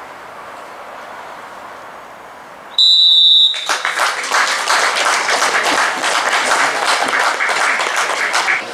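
A few seconds of hush, then a referee's whistle blows one short, high blast about three seconds in, and the crowd bursts into applause straight after. The whistle marks the end of a minute's silence before kick-off.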